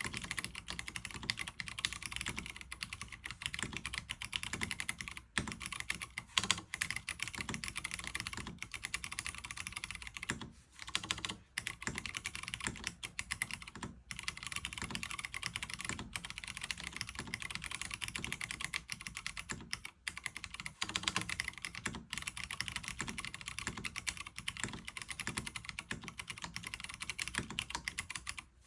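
Fast, continuous typing on a NovelKeys Classic TKL mechanical keyboard with Cherry MX Brown tactile switches (spring-swapped and lubed), PBT keycaps and no foam in the case, broken by a couple of brief pauses.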